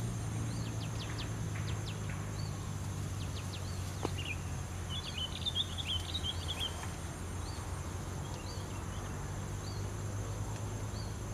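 Small birds calling outdoors: a short high chirp repeated about once a second, with a brief burst of twittering around the middle. A steady low rumble of wind or ambient noise runs underneath.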